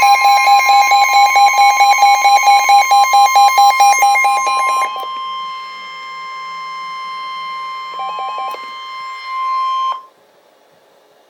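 Emergency alert attention tone: a loud steady tone near 1 kHz with a rapid electronic beeping, about four to five beeps a second, over it for the first five seconds and again briefly near eight seconds. The tone cuts off suddenly about ten seconds in, leaving near silence.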